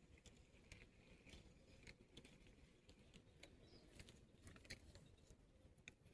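Near silence with faint, scattered small clicks and ticks at irregular intervals.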